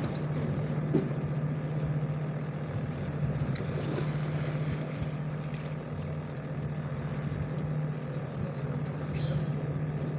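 Fishing boat's engine idling, a steady low hum.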